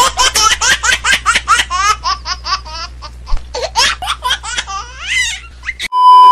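High-pitched laughter in rapid pulses, rising and falling in pitch, over a steady low hum. About six seconds in, a loud steady 1 kHz test-tone beep comes in with the glitching TV colour-bars effect and cuts off abruptly.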